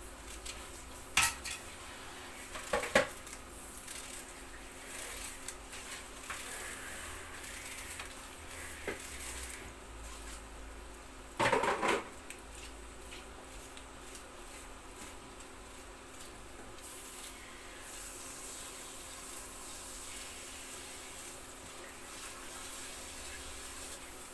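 Minced meat frying quietly in a pan, a faint steady sizzle, broken by sharp clinks of kitchen utensils: two about a second and three seconds in, and a longer clatter near the middle.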